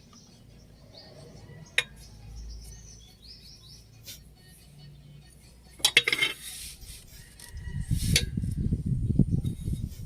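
Metal hand tools clinking and clattering against the engine's drive-belt hardware: a sharp click, then a loud clatter of metal on metal about six seconds in. An irregular low rumbling follows near the end.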